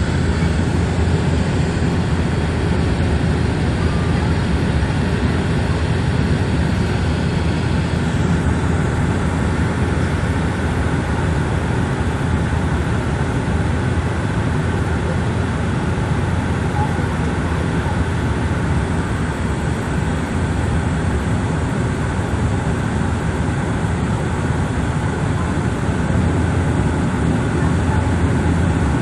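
Steady cabin drone of a Bombardier Dash 8 Q400 turboprop on approach to landing: its Pratt & Whitney PW150 engines and six-bladed propellers give a constant hum under the rush of air along the fuselage.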